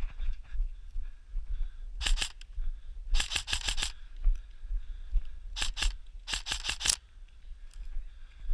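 Airsoft rifle firing four short bursts of rapid, sharp clicking shots: about two seconds in, about three seconds in, then twice more between five and a half and seven seconds.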